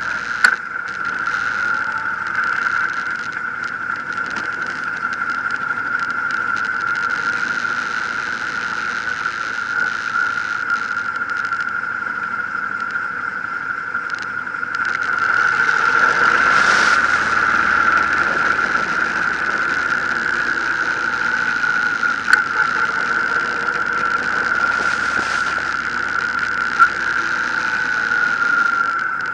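Honda VTX 1800 V-twin cruiser riding through town, its engine and road noise under a steady high-pitched whine that dominates the sound. The noise swells louder for a few seconds around the middle, with a few short ticks.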